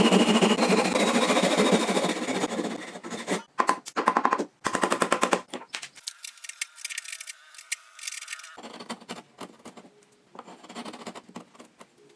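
Rapid, dense clattering of sharp knocks from a tool working wood, loud for about the first three seconds, then thinning into separate strokes and scattered fainter clicks.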